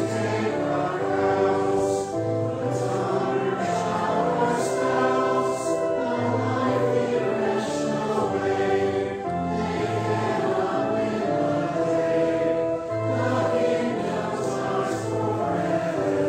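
A congregation singing a hymn together over recorded instrumental accompaniment, in steady held chords with a low bass line.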